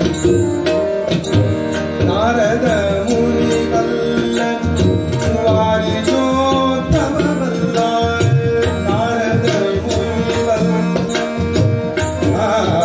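A Kannada devotional bhajan: tabla playing a steady, busy rhythm under sustained harmonium tones, with sung phrases coming in and out.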